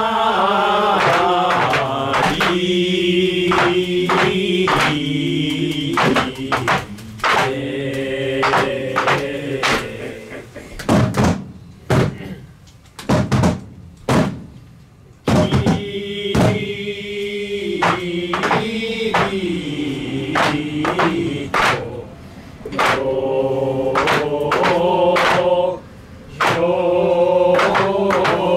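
Lion-dance (shishimai) rehearsal music: several voices chant a long held song in unison, punctuated by sharp drum strikes. Around the middle the singing stops for about five seconds, leaving only a few loud strikes before the chant resumes.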